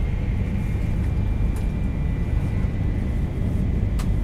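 Inside the passenger car of a Yamagata Shinkansen Tsubasa train running on the line, a steady low rumble with a faint high whine, and a sharp click about four seconds in.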